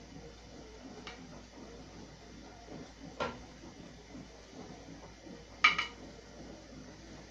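Kitchen tongs clinking against a glass baking dish and a pot while marinated pork chops are lifted out: three separate clinks, the last a louder double one.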